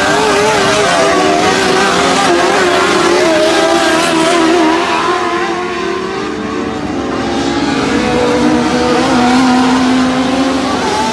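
Several dirt-track race car engines running hard through the turns. Their pitches waver and rise and fall as the drivers get on and off the throttle, over a steady noise of engines and tyres on dirt.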